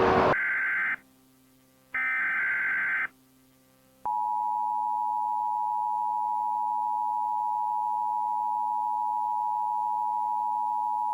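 Emergency Alert System broadcast alert: two short bursts of buzzing SAME data tones about a second apart, then the EAS attention signal, a steady two-tone 853/960 Hz alarm starting about four seconds in and holding. It announces an emergency alert, here a tornado warning.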